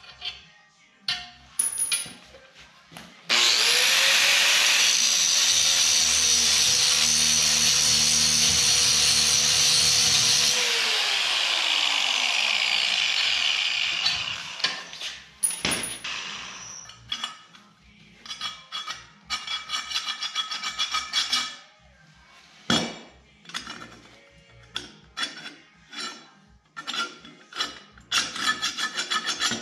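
Angle grinder starting up about three seconds in and cutting metal clamped in a bench vise for several seconds, its motor then winding down. A run of short clanks and scrapes follows as the cut piece is handled.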